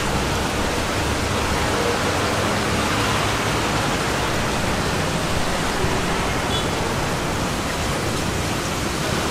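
Steady rushing noise, like running water, from aquarium tanks' filters and aeration.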